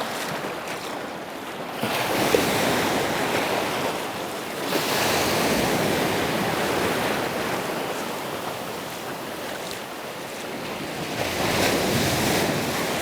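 Surf breaking and washing up the sand, swelling louder three times, with wind on the microphone.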